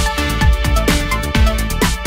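Electronic dance music with a steady kick-drum beat, about two beats a second, and hi-hats.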